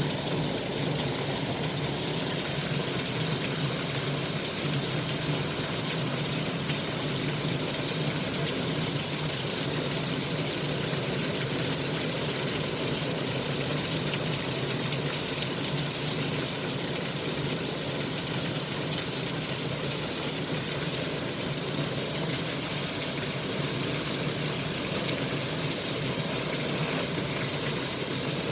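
Steady rain falling: an even, unbroken hiss with no separate drops or knocks standing out.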